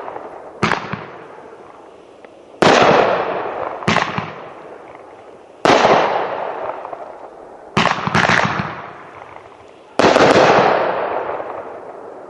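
Megabanger 'Cowboy' 12-shot 500-gram fireworks cake, its aerial shells breaking in the sky with very large breaks. There are seven sharp reports at uneven intervals, three of them the loudest, and each is followed by a long fading rumble.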